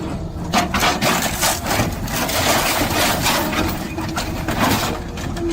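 Heavy shredding machine crunching and cracking through material in dense, irregular bursts over its engine's steady drone.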